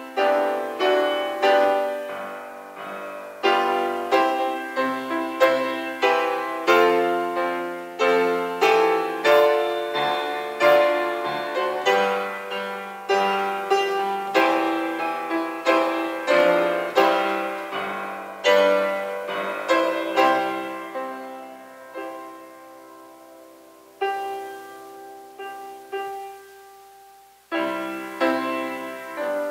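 Solo grand piano playing, struck notes ringing and fading. The playing is full for the first two-thirds, then slows to sparse held chords, and a fresh chord is struck near the end.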